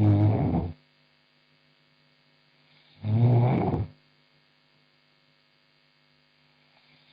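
A woman snoring in her sleep: two loud snores about three seconds apart, each lasting under a second.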